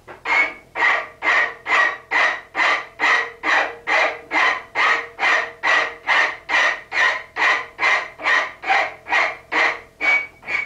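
Hand file rasping across the end of a forged steel bolt held in a vise, in steady strokes a little over two a second, each with a faint ring from the metal. The ragged cut end of the bolt is being filed clean and bevelled so a threading die will start easily.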